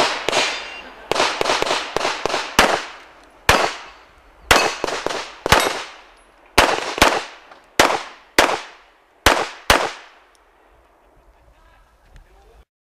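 Smith & Wesson M&P9 Pro 9mm pistol firing a rapid string of shots, many in quick pairs about a third of a second apart, over about ten seconds, each shot with a short echo trailing off.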